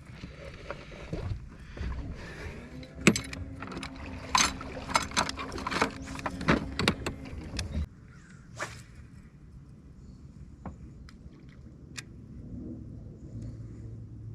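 Knocks, clicks and rattles of fish and gear being handled on a fishing boat, thickest and loudest over the first eight seconds, with a steady low hum that cuts off suddenly about eight seconds in; then only a few scattered clicks.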